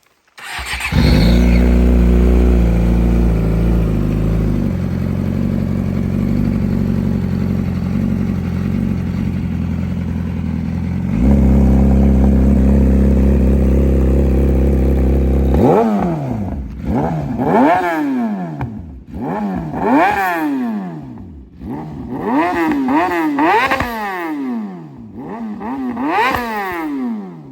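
Yamaha R6 sport bike's inline-four engine and exhaust starting and idling steadily, the idle stepping up about eleven seconds in. In the last ten seconds it is revved repeatedly in quick throttle blips, the pitch sweeping up and falling back each time.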